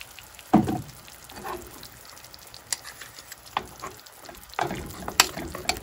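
Metal spoons clinking and scraping against each other and the pan as a spoonful of peanut butter is scraped into a pan of sauce, several short knocks over a faint steady sizzle from the hot pan.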